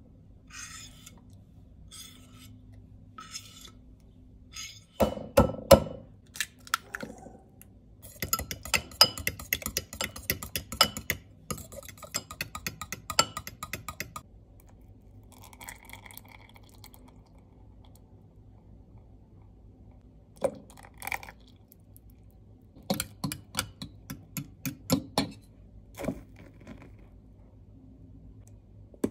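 A metal fork mixing wet banana batter in a ceramic bowl, its tines clicking rapidly against the bowl for several seconds. There are a few louder knocks against the bowl before the mixing, and shorter bursts of clicking later.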